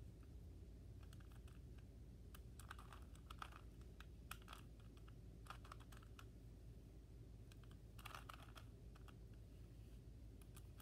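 Faint plastic clicking of a Rubik's Cube's faces being turned by hand, in short irregular bursts of a few clicks each, over a low steady hum.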